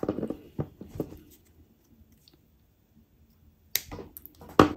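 Handling noise of small parts and tools on a workbench: a few soft knocks and rustles in the first second, then, after a pause, a run of sharp clicks and taps near the end.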